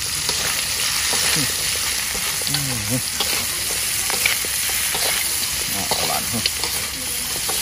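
Spiced meat sizzling in a hot wok while a metal spatula stirs it, with scattered short scrapes and clicks of the spatula against the pan over the steady sizzle.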